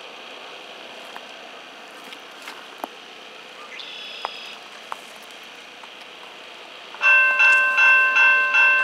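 Railway level-crossing warning bell starts ringing about seven seconds in, struck rapidly and evenly at roughly two and a half strikes a second: the crossing has activated for an approaching train. Before it, only a quiet outdoor background with a few faint clicks and a short chirp.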